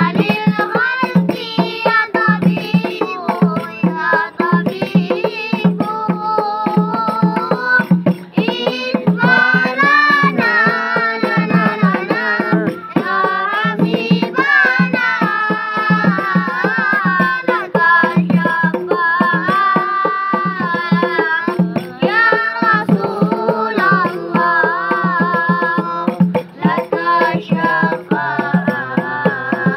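A group of boys sings a sholawat (devotional song in praise of the Prophet) to a hand-beaten frame drum keeping a steady beat.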